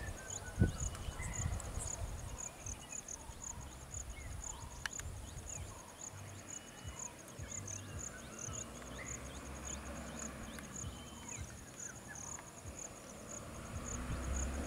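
Insects chirping in an even, rapid rhythm with scattered bird chirps over a low rumble. Near the end an Ashok Leyland bus engine grows louder as the bus starts to move.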